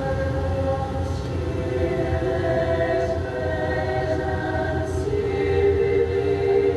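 Mixed choir singing sustained chords, the harmony moving about five seconds in, over a steady low hum.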